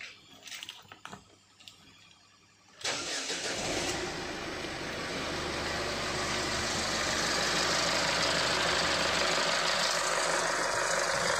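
Ford Figo/Fiesta common-rail diesel engine starting after a few faint clicks, catching about three seconds in with almost no cranking and then idling steadily, its first start after a new injector, new fuel filter and air bleeding. A slight knock is left at idle, which the mechanic expects to clear once injector learning is done.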